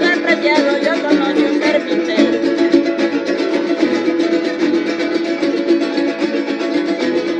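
Instrumental passage of a Veracruz son jarocho: strummed jaranas and a plucked harp playing a fast, steady rhythm.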